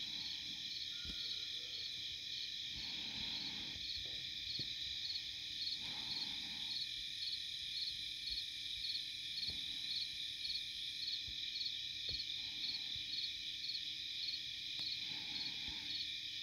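Insect chorus chirping steadily, a continuous high trill with a regular pulse about twice a second, over a few faint knocks and brief rustles.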